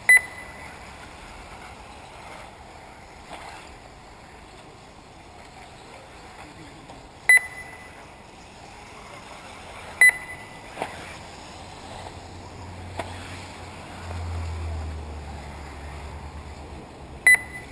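Short electronic beeps from the race's lap-timing system, four of them at irregular intervals, as the buggies cross the timing line. Under them is a steady low background noise, with a brief low rumble about fourteen seconds in.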